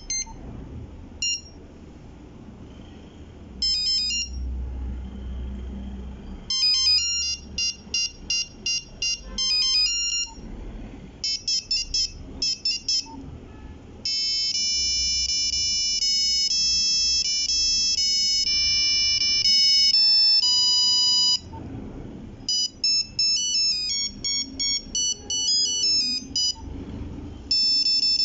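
Nokia 3310 playing its monophonic ringtones, one short beeping tune after another with brief pauses between them.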